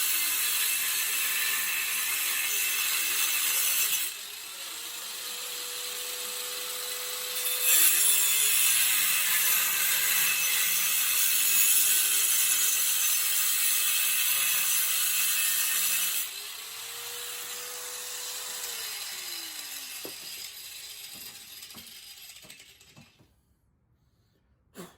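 Harbor Freight angle grinder cutting through 11-gauge steel: a loud harsh grinding that eases off twice into the motor's whine, rising and then falling in pitch, before the grinder runs down and stops near the end.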